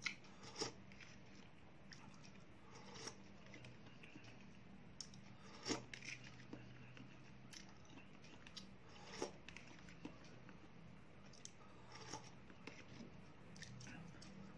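A metal spoon clicking and scraping against a plastic cup while eating soup from it, with faint eating sounds: a handful of scattered soft clicks over a low steady room hum.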